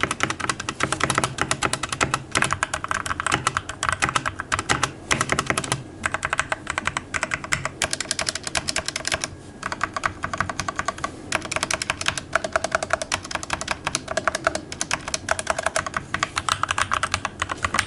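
Fast typing on a Keychron C1 mechanical keyboard with lubed Gateron Red linear switches: a rapid, continuous run of keystrokes, with brief pauses about six and nine seconds in.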